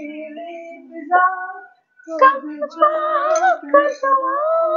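A woman singing without accompaniment, holding long notes with a wavering vibrato, with a short break about two seconds in.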